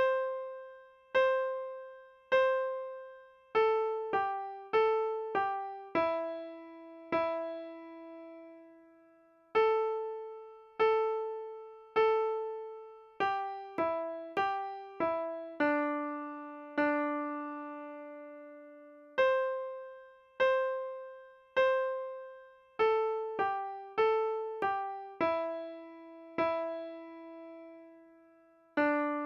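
A simple beginner melody played on a piano, one note at a time with no chords, at a slow, even pace; each note starts sharply and fades, with some held notes longer than others.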